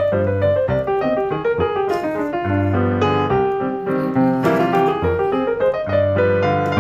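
Background music: a piano playing a melody over held bass notes.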